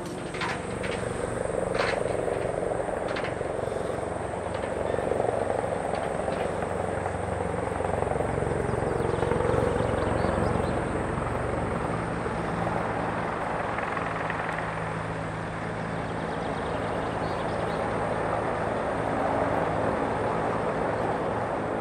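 A steady mechanical drone, like an engine or rotor running, with a low pulsing hum.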